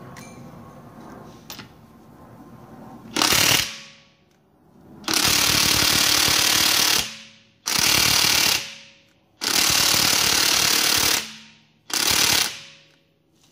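Cordless impact wrench hammering on a wheel's lug bolt in five bursts of one to two seconds each, starting about three seconds in, each trailing off as the motor spins down. It is working at a stuck lug bolt.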